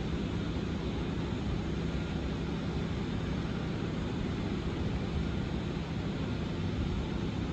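Steady low engine rumble of heavy machinery running, with no distinct knocks or clanks.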